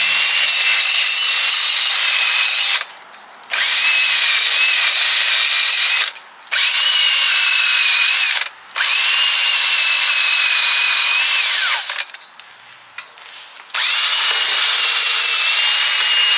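Cordless drill spinning a wire wheel brush against a car's rear wheel hub, scouring off rust so the new brake disc sits flat. It runs in bursts of two to three seconds with a steady motor whine, stopping briefly four times; the last pause is the longest.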